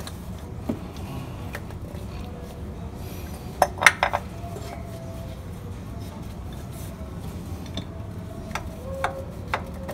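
Sharp metallic clinks of a hand tool working against the underside of a car. There is a cluster of them about four seconds in and a few lighter ones near the end, over a steady low hum.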